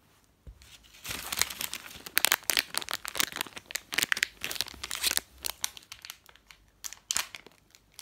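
A crinkly plastic wrapper on a small toy being torn open and crumpled by hand: a dense run of sharp crackles that starts about a second in.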